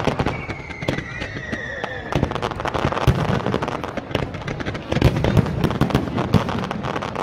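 Aerial fireworks display: rapid crackling and popping from shell bursts, with heavier bangs in places. Near the start, a whistle falls slightly in pitch over about two seconds.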